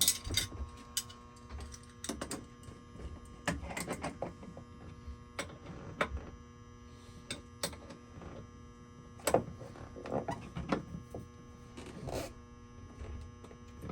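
Scattered clicks and knocks of hands and tools fitting a fuel line and Racor fuel filter housing, over a steady electrical hum; the sharpest knock comes about two-thirds of the way through.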